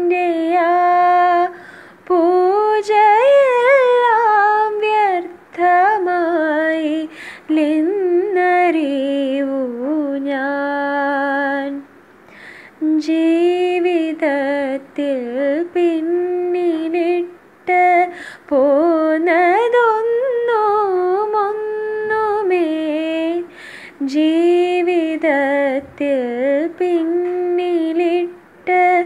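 A woman singing solo and unaccompanied into a wired earphone microphone: a slow melody in long held phrases with wavering, ornamented glides in pitch, broken by short pauses for breath.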